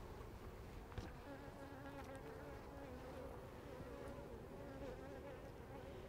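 Honey bees buzzing faintly and steadily on an open hive frame, with one light knock about a second in.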